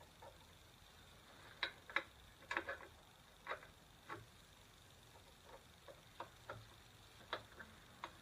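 A wrench working the locking nut on a motorcycle's rear-axle chain adjuster: about a dozen faint, irregular clicks and taps of tool on nut.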